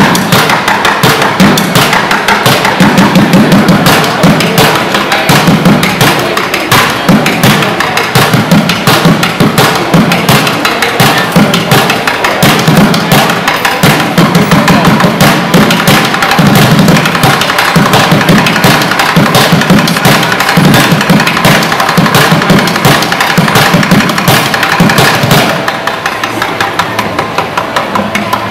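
Fast drumming with sticks on upturned plastic buckets: rapid sharp stick clicks over repeated low, hollow thuds.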